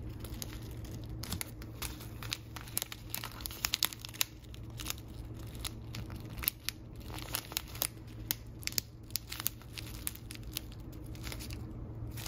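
Clear plastic zip-top pouch of loose-leaf tea crinkling as fingers handle and squeeze it, with irregular sharp crackles and the dry leaves shifting inside.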